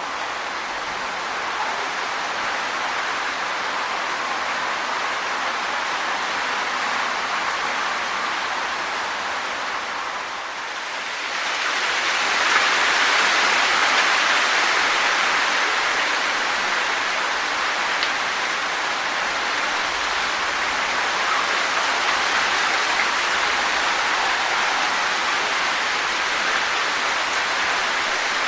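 Wind blowing through trees with the leaves rustling in a steady hiss. A stronger gust swells in about eleven seconds in and stays up.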